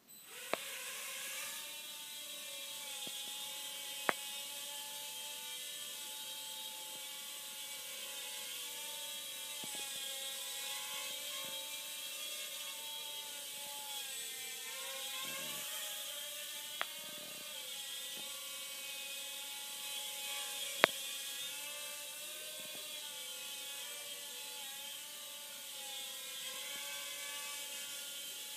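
Blade Nano QX micro quadcopter's four tiny coreless motors and propellers whining as they start up and run steadily in flight, the pitch wavering up and down as it manoeuvres. A few sharp clicks stand out, the loudest about 21 seconds in.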